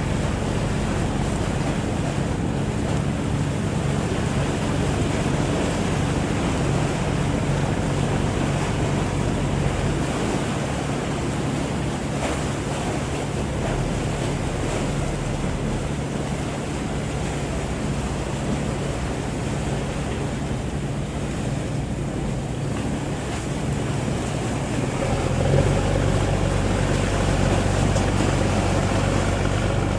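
A boat's engine running steadily, with a low hum under wind and water noise. About 25 seconds in, the engine note changes and grows louder.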